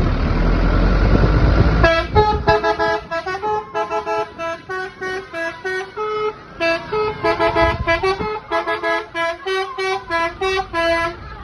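A bus's basuri 'telolet' musical horn playing a fast tune of short, high, stepped notes, with a brief pause midway, after about two seconds of loud engine and road noise as the bus comes by.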